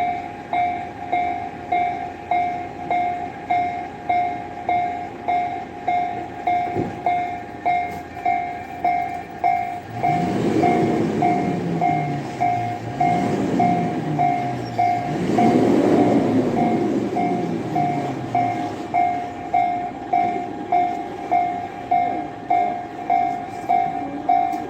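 Level-crossing warning bell ringing steadily, a little under two strokes a second. A train passes through the crossing, its rumble swelling from about ten seconds in and fading before the end.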